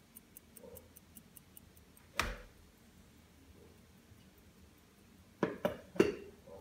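A mechanical pocket watch, a size 16 Elgin, ticking at about five beats a second, dying away a little under two seconds in. Then one sharp knock, and near the end three quick knocks as things are handled on the bench.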